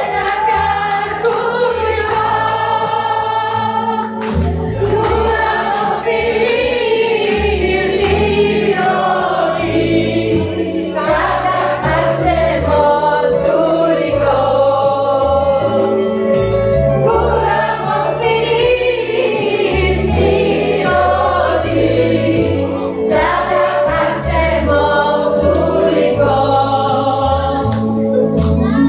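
A mixed group of amateur singers singing a song together, led by a woman's voice on a microphone, over an instrumental accompaniment with a stepping bass line.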